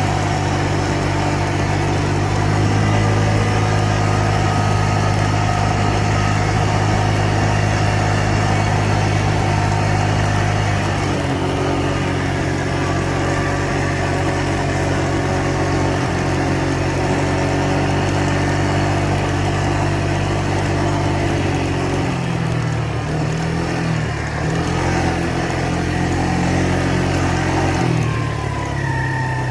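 Four-wheeler engine running steadily while riding over a bumpy trail. Its note changes pitch about a third of the way in and again about two-thirds in, as the throttle or speed changes.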